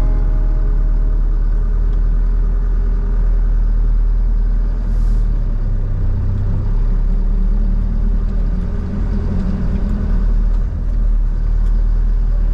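Mitsubishi Canter 4x4 truck's diesel engine working under load as it drives out of an obstacle, its revs rising and falling a little.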